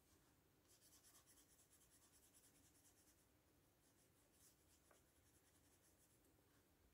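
Faint, rapid short strokes of a watercolour paintbrush's bristles on paper, in two runs with a brief pause between.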